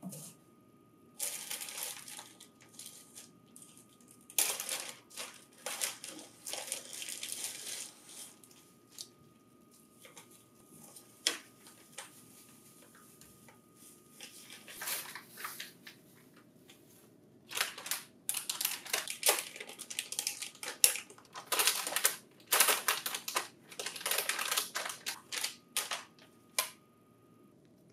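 Plastic packaging crinkling and rustling in the hands as a hard disk is unwrapped from its clear plastic wrap and anti-static bag. It comes in irregular bursts of crackling, with a quieter stretch in the middle.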